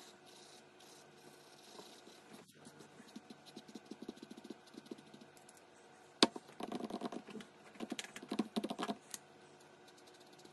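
Rapid light clicking of small hard objects, then one sharp click about six seconds in followed by a denser clicking clatter for about three seconds.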